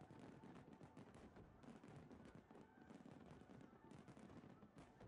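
A rapid, uneven run of faint pops and bangs from many aerial fireworks shells bursting together in a barrage.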